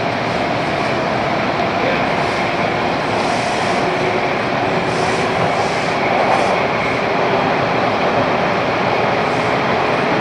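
Bombardier T1 subway car running between stations through a tunnel, heard from inside the car: a steady, even rumble with faint steady tones in it.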